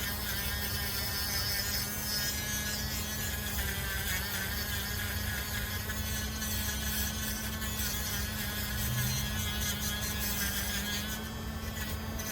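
Dremel rotary tool running steadily with a wire brush attachment, brushing a bone-handled pocketknife; a constant high-speed buzz with a hiss from the brush.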